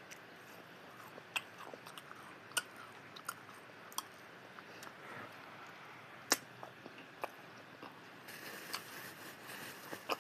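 Eating sounds: scattered sharp clicks and crunches about a second apart, over a faint steady hiss. The loudest click comes a little past the middle.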